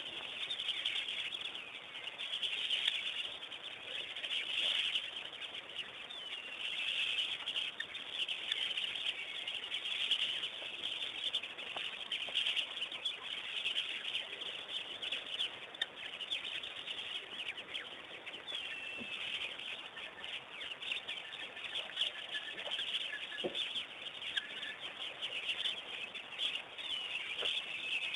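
Many birds chirping and calling at once in a steady, dense chorus of short, high notes.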